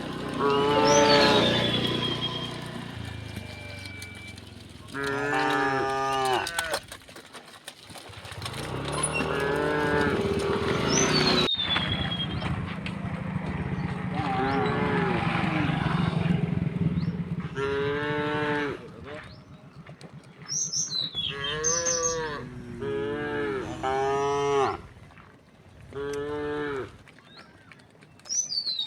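Cows mooing, about eight long calls one after another with short gaps between them. A high, falling whistle, like a bird call, cuts in a few times.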